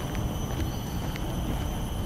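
Footsteps at a walking pace, a light tick about every half second, over a steady low rumble and a steady high-pitched whine.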